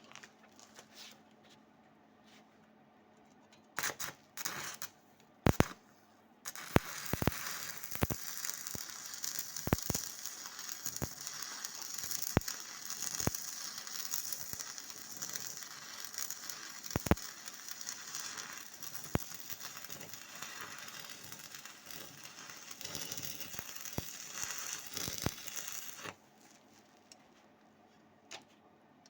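Stick welding arc crackling steadily for about twenty seconds with sharp pops, after a few short strikes at the start; it cuts off abruptly near the end.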